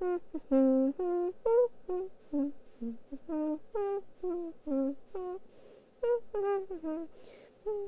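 A young woman's voice humming a bouncy tune in short, separate notes, about three a second. A brief hiss comes near the end.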